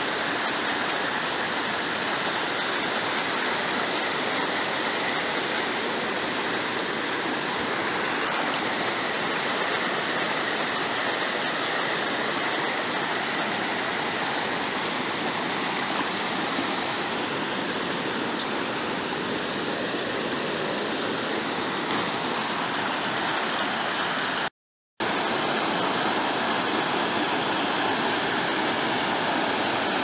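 River rapids and small waterfall rushing over rocks: a steady, unbroken rush of white water, cutting out to silence for a split second late on.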